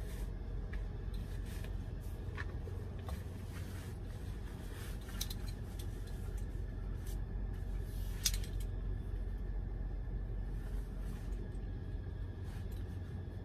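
Clothing rustling, with scattered small clicks and knocks, as a person pulls on cargo pants and stands up in a cramped truck sleeper cab; one sharper click about eight seconds in. A steady low hum runs underneath.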